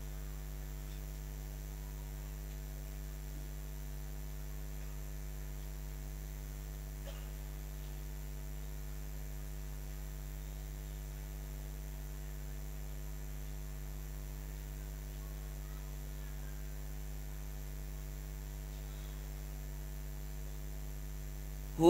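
Steady electrical mains hum, a low buzz with higher overtones, unchanging throughout with nothing else over it.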